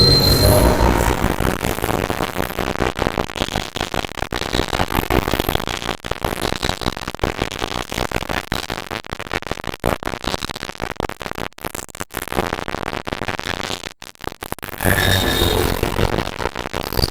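Experimental harsh-noise music: a dense crackling, stuttering wall of electronic noise full of brief dropouts, thinning and breaking up more toward the middle. About fifteen seconds in, a louder, fuller layer with a few held tones comes back in.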